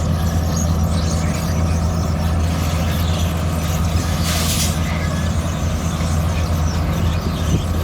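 Heavy diesel engine of road-construction machinery running steadily at a low, even pitch, with a short hiss about halfway through.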